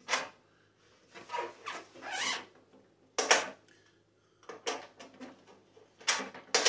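Box wrench clicking and scraping against a nut on the metal heater frame as it is tightened. There is a sharp click at the start, scratchy scrapes over about a second, a louder clank a little after three seconds, and a few more clicks near the end.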